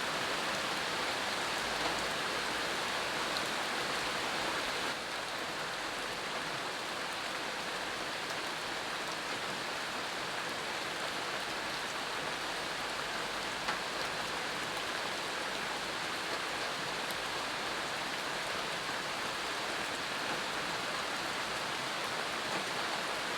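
Steady rain falling, an even hiss of drops with a few faint single drips standing out; it steps slightly quieter about five seconds in.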